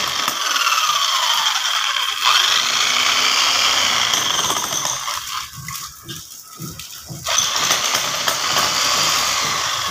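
Electric demolition hammer chiselling into hard adobe ground, with its rapid hammering rattle. It stops about five and a half seconds in and starts up again under two seconds later.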